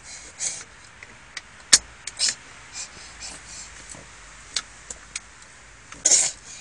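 A seatbelt latch plate and buckle being fumbled by small hands: scattered clicks and light rattles, the sharpest click about two seconds in, then a louder short scuffle near the end.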